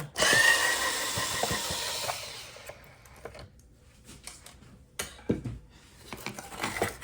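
Cordless power drill/driver running with a steady whine for about two and a half seconds as it spins a bolt out, then stopping. Light clicks and handling of small parts follow, with one sharp click about five seconds in.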